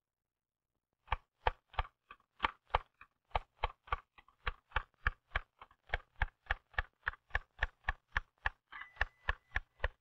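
Manual typewriter keys being struck one at a time in a steady, even rhythm of about three strokes a second, each stroke a sharp clack of the typebar hitting the platen. The strokes start about a second in.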